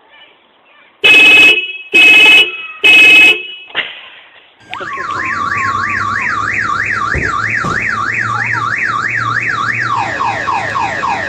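Car alarm set off by a button press: three loud steady blasts about a second apart, then a siren warbling up and down about three times a second, switching near the end to quick falling sweeps.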